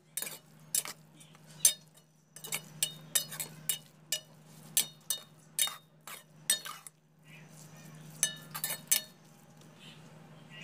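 Metal spatula stirring crumbled paneer in a steel pan, clinking and scraping against the pan in irregular sharp strikes that ring briefly. The paneer is being dried out for mawa. A steady low hum runs underneath.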